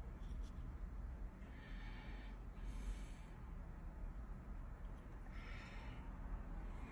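Three short noisy puffs of breath over a faint low steady hum.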